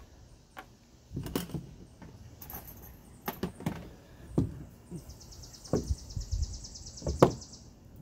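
Knocks and clunks of a Titan hydraulic cable crimper being handled and set down on wooden deck boards, a handful of separate hits. A rapid high ticking runs for about two and a half seconds starting about five seconds in.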